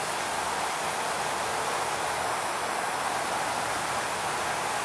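Steady, even outdoor hiss with no tone or rhythm in it.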